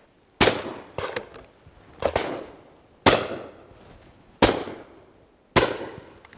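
Shotguns firing: five loud shots spread a second or so apart, each with an echoing tail that fades away, and a few fainter shots between them.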